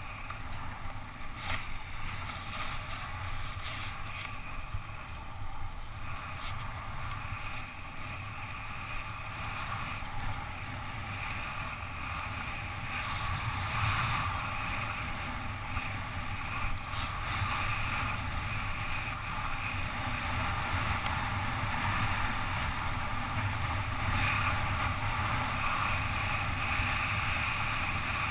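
Steady wind rushing over a helmet-mounted GoPro's microphone on a bicycle descending fast, mixed with the hiss of tyres on asphalt. It grows a little louder about halfway through as speed builds.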